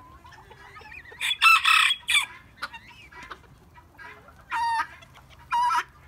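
Chickens calling: a rooster crows loudly about a second in, and two shorter calls follow near the end.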